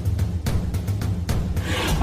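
Dramatic action-film score: a deep drone under a run of sharp, irregular hits, with a swell rising near the end.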